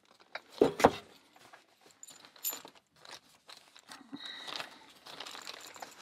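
Clicks, knocks and light rustling of lock installation hardware being handled and lifted out of a wooden box. Two knocks under a second in are the loudest.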